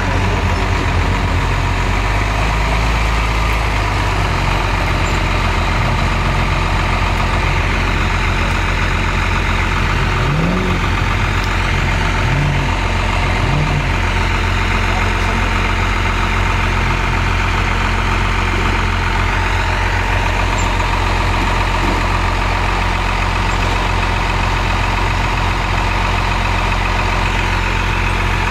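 Lifted Jeep Wrangler's engine running at low revs as it crawls over boulders, with a few brief rises in revs a little past a third of the way through.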